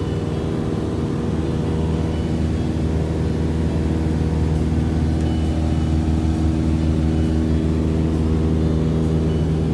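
Single-engine high-wing light airplane's piston engine and propeller droning steadily in cruise, heard from inside the cabin.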